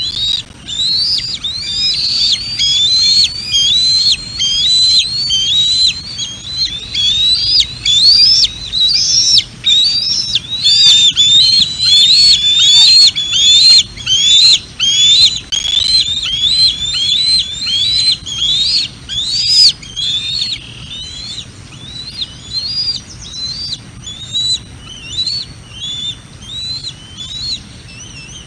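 Juvenile bald eagle (eaglet near fledging) calling: a long run of high, piercing whistled notes, each rising and falling, about one to two a second. The calls grow louder and more insistent in the middle, then become fainter and sparser near the end.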